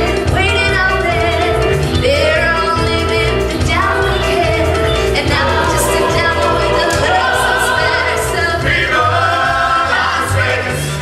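Music with singing: a sung melody over a steady bass line, continuous and loud.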